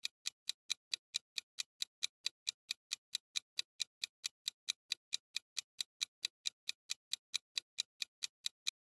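Countdown-timer sound effect: a steady clock-like ticking, about four ticks a second.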